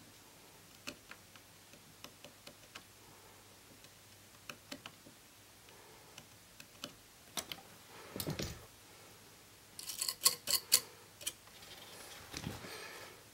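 Scattered light ticks and clicks of close-up handling as a fine-tipped tool works on the traces of a flexible circuit. A quick cluster of louder clicks comes about ten seconds in, with two brief low rumbles of handling noise around it.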